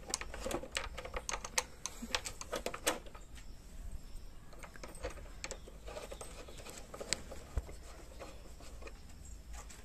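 Small, irregular clicks and scrapes of a screwdriver and screw being worked into a motorcycle's plastic headlight housing, busiest in the first few seconds and sparser after.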